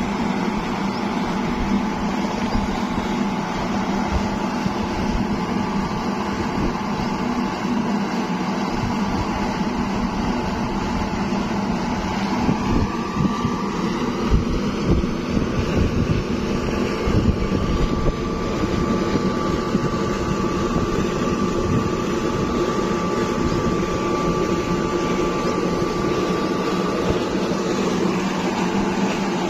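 Large electric motor belt-driving a centrifugal water pump, running steadily with a constant hum and a high whine as it lifts canal water.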